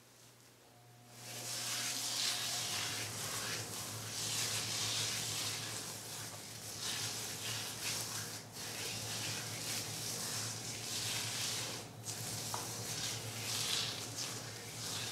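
Wet, conditioner-slicked type 4 natural hair being worked through by hand while detangling, giving a continuous wet, hissing crackle that starts about a second in and dips briefly a few times.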